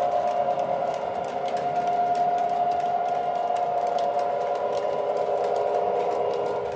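O scale model train rolling across a trestle: a steady hum of its wheels and motor on the track, with light clicks of the wheels passing over rail joints.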